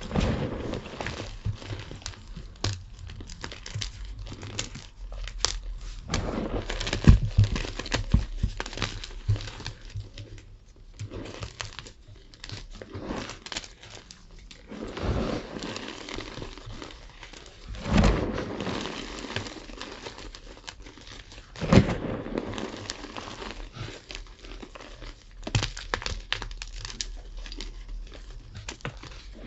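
Tie-dye gym chalk being crunched and crumbled close to the microphone: a steady run of dry crackling and crunching, with a few louder crunches along the way.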